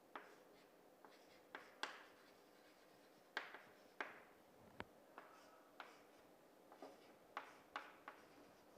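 Chalk drawing and writing on a chalkboard: faint, short scratching strokes and taps, about a dozen spread irregularly.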